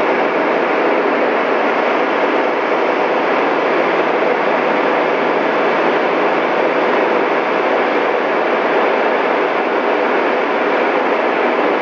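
Steady, loud cabin noise of a de Havilland Canada DHC-6 Twin Otter in flight: the even drone of its twin PT6A turboprop engines and propellers mixed with rushing airflow, heard from inside the passenger cabin.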